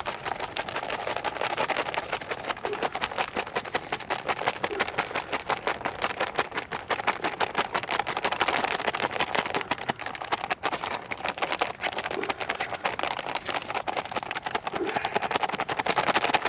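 Freeze-dried meal pouch crinkling and rustling rapidly and continuously as it is worked to mix the hot water into the food.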